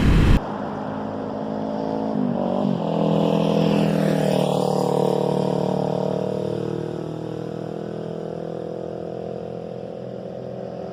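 Kawasaki Ninja 400 parallel-twin with a Fuse Racing slip-on exhaust riding past: the exhaust note swells over a few seconds, then slowly fades as the bike moves away.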